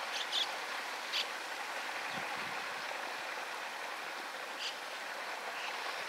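Steady rushing of a stream, with three short high bird chirps: about half a second in, at about a second, and near five seconds in.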